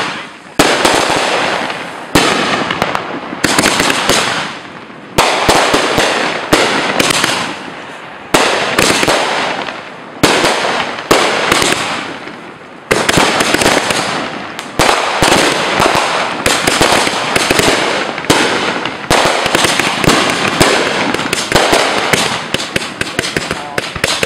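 Fireworks display: shells and comets firing and bursting, sharp bangs about once a second, each trailing off into crackle. From about halfway the shots come faster and overlap, and the last few seconds are a near-continuous barrage.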